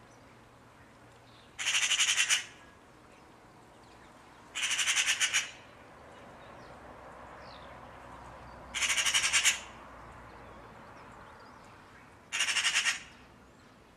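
Magpie giving its harsh, rattling chatter call: four short bursts of rapid repeated notes, a few seconds apart.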